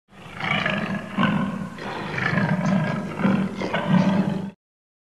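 Male lion roaring with a rough snarl: one continuous vocalization of about four and a half seconds that swells several times, then cuts off suddenly.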